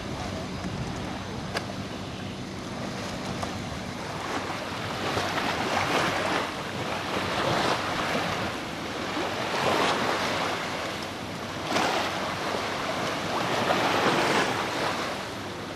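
Small waves washing up on a sandy beach, surging in every two to three seconds, with wind on the microphone. A faint low steady hum sits under the first few seconds.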